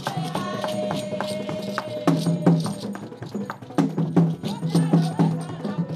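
Vodou ritual chant: voices singing over irregular sharp clicks and rattles from hand-held percussion.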